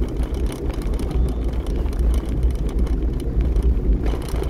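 Steady low rumble of a car driving along a wet road, heard from inside the cabin: engine and tyre noise with no change in pace.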